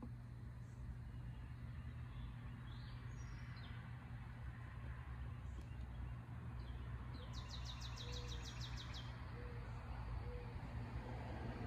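Songbirds calling over a steady low outdoor hum: a faint high call about three seconds in, then a quick high trill of about a dozen notes lasting under two seconds.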